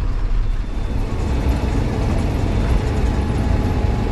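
Bus engine and road noise heard from inside the driver's cabin of a moving bus: a steady low rumble with a hiss of tyres and wind.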